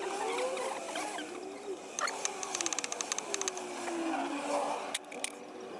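Ratchet driving a 5 mm hex bit into a ground-anchor security bolt: a quick run of ratchet clicks about two seconds in, lasting a second and a half, with a few single clicks near the end. Wavering squeaky tones run underneath throughout.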